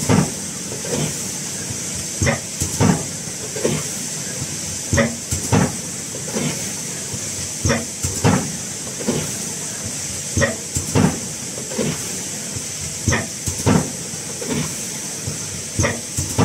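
Automatic tilting thermoforming machine for PP cups running through its cycles: a steady hiss with a pair of sharp knocks about half a second apart repeating every two to three seconds.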